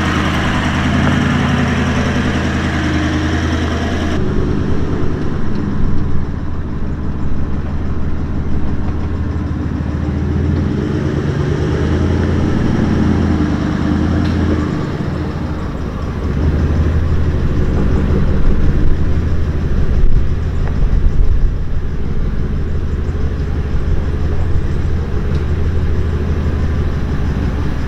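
Toyota LandCruiser 76 Series engine working under load as it crawls up a steep, rocky bush-track hill with both diff lockers engaged, its note rising and falling with the throttle.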